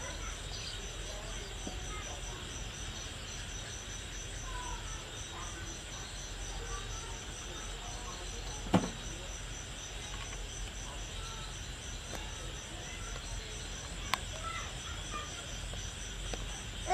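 Steady, rapidly pulsing high-pitched insect chirping, like crickets, with one sharp knock about nine seconds in and a faint click a few seconds later.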